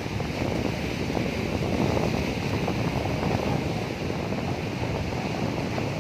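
Sea waves washing in as a steady surf, with wind buffeting the microphone.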